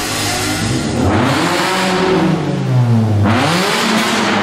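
A modified car's engine and exhaust accelerating hard as it drives away, the engine pitch climbing and falling, then dropping sharply a little past three seconds in and climbing again as it pulls away.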